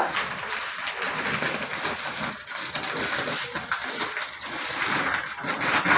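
Printed plastic sack rustling and crinkling without a break as it is handled and a rat snake is worked into it.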